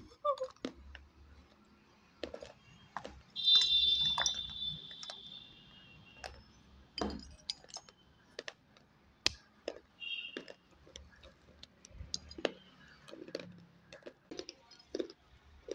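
Crunching of dry, hard-fired terracotta pot pieces being bitten and chewed: a scattered run of sharp, crisp clicks and cracks. A high-pitched tone lasting about two seconds starts about three and a half seconds in and is the loudest sound, with a shorter one about ten seconds in.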